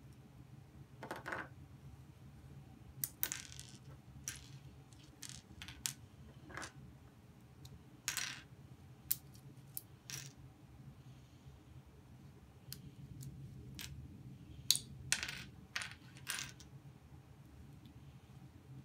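LEGO bricks clicking and clattering as a model is pulled apart and pieces are set down, in irregular sharp clicks and short rattles every second or so, over a steady low hum.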